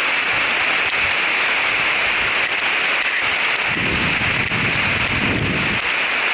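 Heavy rain pouring, a steady even hiss, with a low rumble lasting about two seconds a little past the middle.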